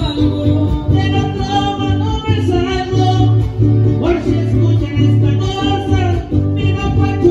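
Mariachi band playing live through a PA: strummed guitars over a rhythmic plucked bass line, with a voice singing the melody.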